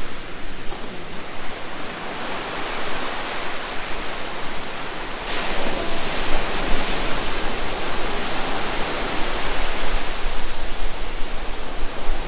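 Ocean surf breaking and washing up a sandy beach: a continuous rushing of waves, louder from about five seconds in.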